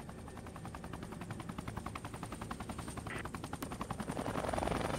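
Rescue helicopter heard from inside its cabin: the main rotor's rapid, even blade chop over the steady turbine whine, getting louder near the end.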